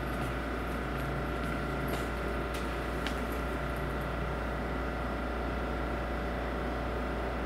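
Steady low hum of a railway station platform, with a few faint whining tones held level and occasional light ticks; no train is passing.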